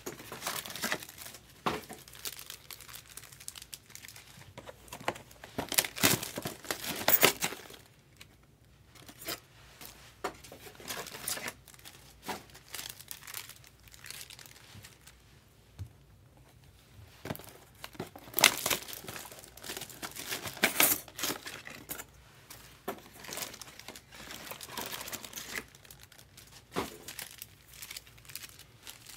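2024 Bowman Chrome baseball card packs being torn open by hand, their wrappers crinkling in irregular bursts with a few short pauses.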